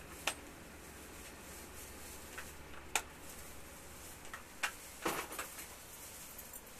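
A few scattered light clicks as a flat iron's plates close and open on sections of hair, with a small cluster about five seconds in, over a faint steady low hum.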